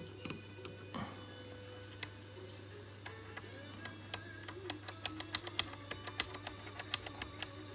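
A steady low electrical hum under a run of small, irregular clicks that come faster over the second half, several a second near the end.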